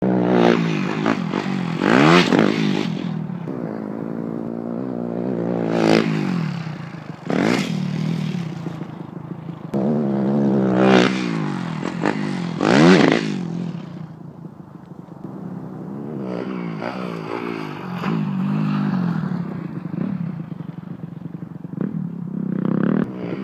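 Motocross dirt bike engine revving in repeated surges, its pitch climbing and falling as the rider hits the jump and goes airborne. There are several sharp revs, the loudest about halfway through, and it eases off briefly before building again near the end.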